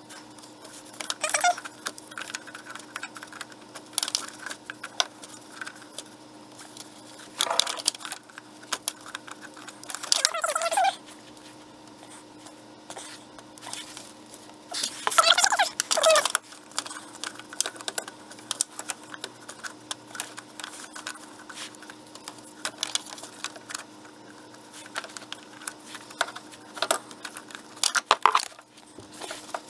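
Irregular metallic clicks, scrapes and rattles as a filter wrench is worked on a tight spin-on oil filter and the filter is turned loose, with a few louder scraping bursts. A faint steady hum runs underneath.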